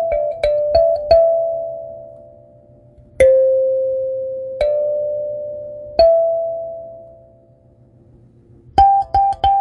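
Kalimba played with the thumbs: a quick run of plucked metal tines, then three single notes about a second and a half apart, each left to ring and fade, before quick notes resume near the end.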